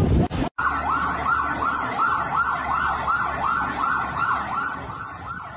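A short noisy stretch cuts off suddenly about half a second in. Then an emergency vehicle's siren sounds in a fast yelp, sweeping up and down about three times a second.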